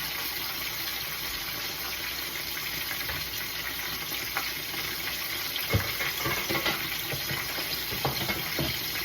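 Catfish frying in hot grease: a steady sizzle, with a few light knocks in the second half.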